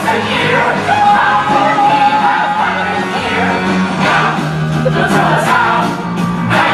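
Rock music with singing, played as a film soundtrack.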